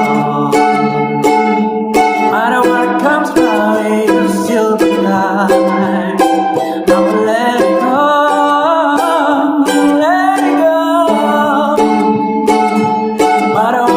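Mandolin being strummed, a steady quick run of plucked chords with a bright ringing tone.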